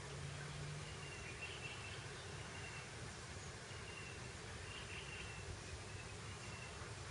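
Steady breeze blowing over grassland, an even rushing hiss, with faint short high chirps recurring every second or so.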